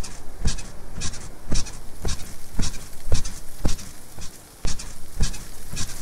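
Bed springs squeaking in a steady rhythm, about two squeaks a second, each with a low thump under it. There is a brief pause a little past the middle.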